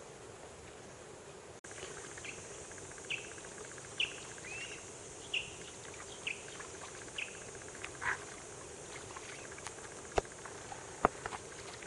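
A bird calling in short chirps, about one a second, over a steady outdoor hiss. Two sharp knocks come near the end.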